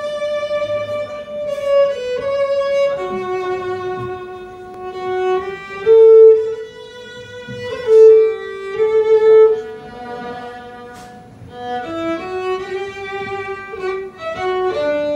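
Fiddle playing a slow folk melody of long held notes, swelling louder on a couple of notes midway.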